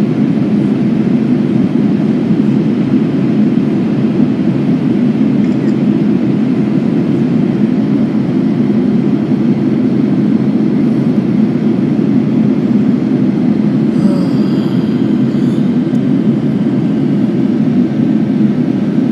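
Steady, loud low roar inside the passenger cabin of a Boeing 787-9 airliner in flight: engine and airflow noise as the jet begins its descent from cruising altitude.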